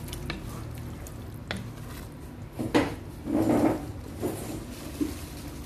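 Wooden spoon stirring oily cooked greens in a metal cooking pot, knocking against the pot a few times, with a longer scraping stir about three and a half seconds in.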